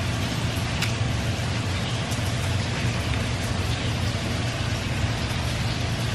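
Steady sizzling hiss of food frying in a pan, with a low steady hum underneath and a few faint clicks.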